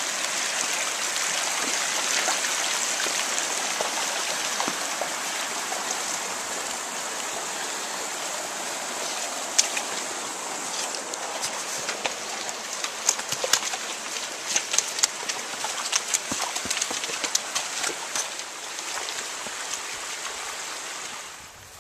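A shallow rocky creek rushing steadily. Through the second half, sharp clicks and knocks of a donkey's hooves stepping on rocks cut through the water sound.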